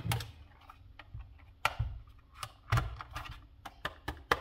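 Plastic case of a Lenovo ThinkPad Thunderbolt 3 dock being gripped, squeezed and turned over by hand: about a dozen irregular sharp clicks and light knocks as the housing flexes and shifts. The case, its screws already out, does not yet come apart.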